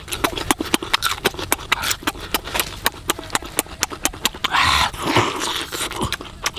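Close-up chewing and lip-smacking of a person eating roast chicken: rapid, irregular wet mouth clicks, with a brief noisy breath about two-thirds of the way through.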